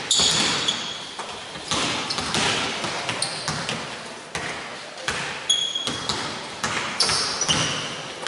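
Basketballs bouncing on a hardwood court at irregular intervals, each thud echoing in a large sports hall. Sneakers give several short, high squeaks on the floor.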